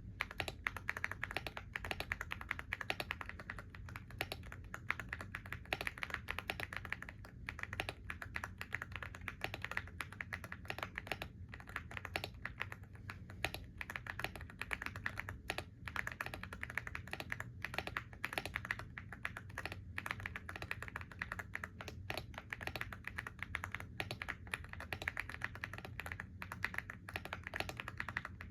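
Computer keyboard being typed on steadily, a quick run of key clicks with short pauses between bursts.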